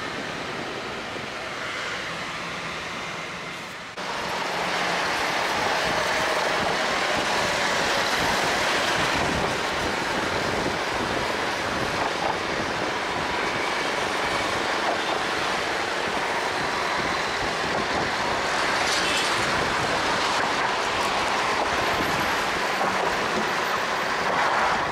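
Steady rumbling, rushing noise of a moving vehicle, with no clear rhythm, stepping up suddenly in loudness about four seconds in.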